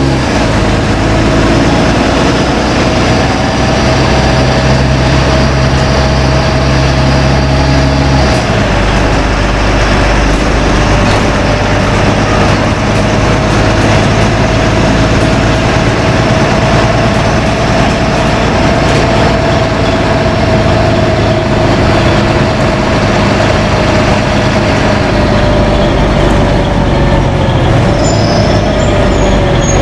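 LiAZ-5292.20 city bus heard from inside the cabin while riding: a steady engine and drivetrain drone with a whining tone, the engine note changing about eight seconds in.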